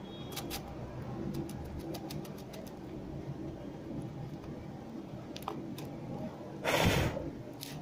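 Faint rubbing and handling noises of a rubber eraser worked over the copper contact pads of a Seagate Barracuda hard drive's logic board, scrubbing off corrosion. There are a few small clicks, and a short louder noise about seven seconds in.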